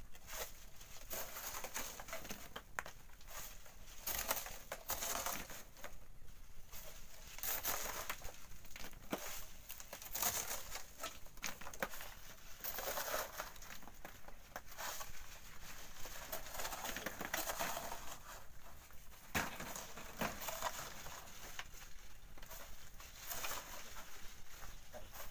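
Hoe scraping through volcanic sand and gravel, with sand and stones tipped and rattling into a steel wheelbarrow and through a hand sieve: irregular gritty scrapes and clattering knocks every second or so.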